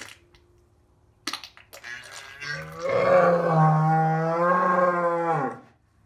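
Cow in labour giving one long, loud, low moo lasting about three seconds and dropping in pitch as it fades out, with a short noisy sound about a second before it.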